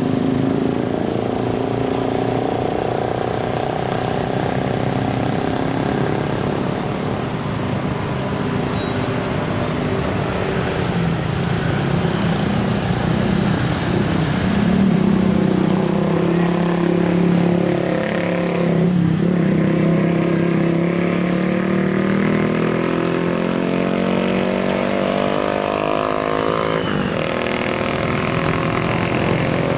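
Slow passing road traffic: car and minivan engines running close by, with motorcycles among them, a continuous mix of engine noise. Around the middle the engine pitch dips, then climbs steadily as vehicles pull away.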